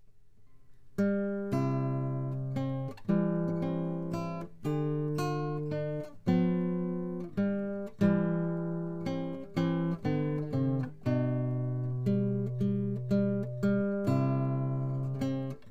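Background music on acoustic guitar: chords strummed and left to ring, a new chord about every second and a half, starting about a second in.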